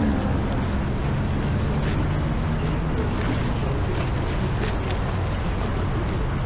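A steady low engine drone with even low tones over a background of noise.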